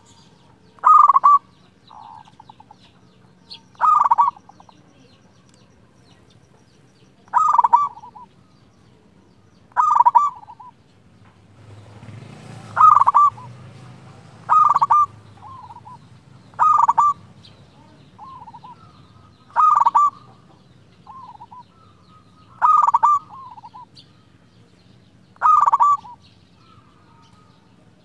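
Zebra dove (local perkutut) singing in full voice, its territorial cooing song of the kind used to call and provoke rival birds. It gives short loud cooing phrases about every two to three seconds, each trailed by a few softer notes. A brief hiss comes about twelve seconds in.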